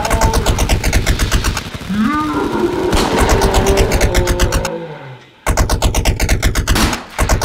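Rapid automatic-gunfire sound effect, about eight to ten shots a second, dubbed over a mock Nerf gun battle. It cuts out for about half a second just before the five-second mark and again briefly near the end. In the middle there are pitched tones that slide up and down, one falling steadily.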